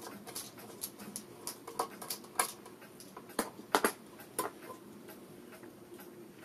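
Irregular light clicks and taps of a circuit board and its wiring harness being handled and worked into a tape deck's metal chassis. The clicks come unevenly and stop about four and a half seconds in.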